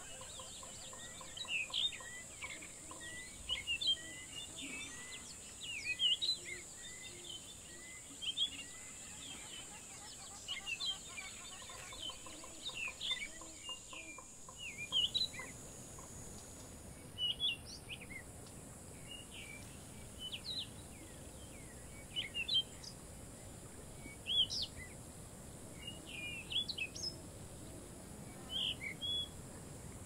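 Wild forest birds chirping and whistling in short, scattered calls, several voices overlapping. Through the first part one bird repeats a short note about twice a second, over a steady high-pitched drone that fades out a little past halfway.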